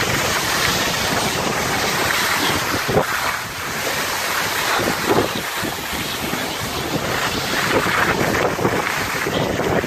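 Wind buffeting the microphone while the person holding it slides down a ski run, over a steady hiss of snow scraping underneath. A few short knocks come about three and five seconds in.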